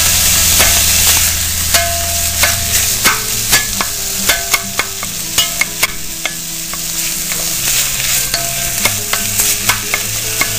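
Ground beef and diced onion sizzling in olive oil in an enamelled pot, stirred with a wooden spoon that gives many short taps and scrapes against the pot. The meat is partway browned.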